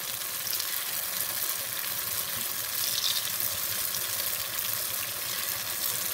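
Paniyaram batter sizzling and crackling in hot ghee in the cups of a paniyaram pan, with more ladlefuls of batter poured into the empty cups as it fries.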